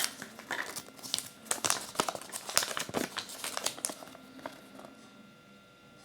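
Kinder Surprise egg wrapping crinkling and tearing as it is unwrapped by hand: a dense run of crackles that thins out after about four seconds.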